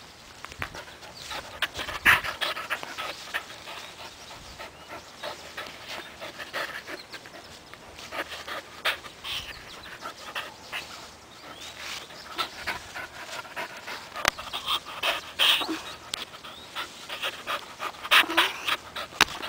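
A young puppy panting hard while playing with a rope toy, with scattered clicks and rustles throughout.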